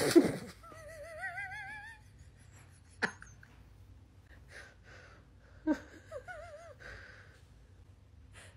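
Dog whining: a loud sneeze-like burst at the start, then one long high cry with a wavering, slowly rising pitch, and another shorter wavering whine about six seconds in. A sharp click comes about three seconds in.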